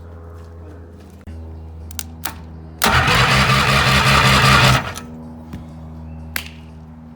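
Small lawnmower engine, rigged onto a boat as an outboard, pull-started: it fires and runs loudly with a rapid pulsing beat for about two seconds, then cuts out. A steady low hum runs underneath throughout.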